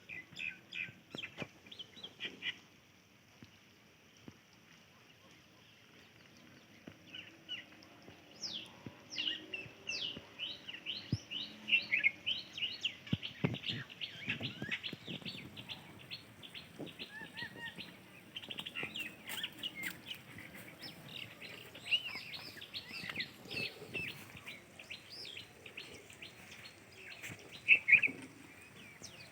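A flock of small birds chirping in quick, overlapping calls. The chirps thin out for a few seconds after the start, then grow into a dense chorus.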